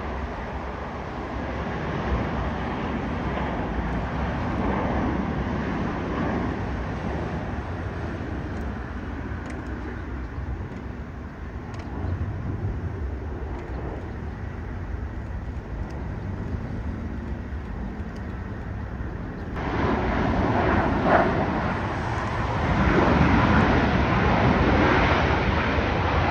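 Jet airliner engines rumbling through a takeoff roll and climb-out. About two-thirds of the way through, the sound cuts abruptly to a louder, brighter engine noise from a second airliner on the runway.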